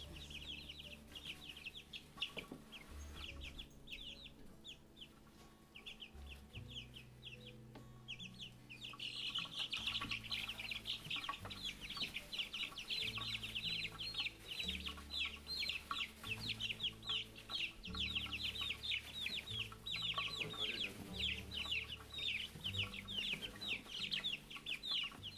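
A brood of two-week-old chicks peeping: scattered short chirps at first, then from about nine seconds in a dense, rapid chorus of overlapping high peeps.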